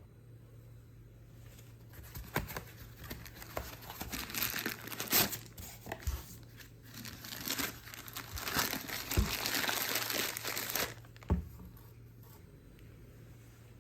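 Crinkly material being crumpled and handled, with a few sharp knocks among it, starting about two seconds in and stopping about three seconds before the end.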